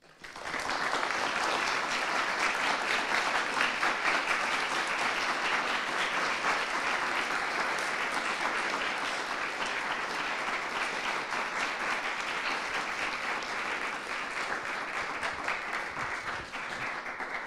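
Audience applauding: many hands clapping together, starting all at once and holding steady, easing off slightly toward the end.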